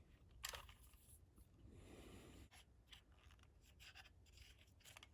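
Near silence, with a few faint clicks and a soft rubbing sound about two seconds in, like light handling and wiping of a small plastic calculator.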